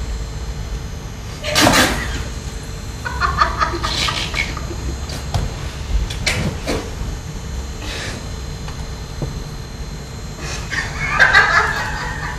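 High, clucking bursts of stifled laughter, coming in fits a few seconds apart, with a few sharp clicks between them over a low steady hum.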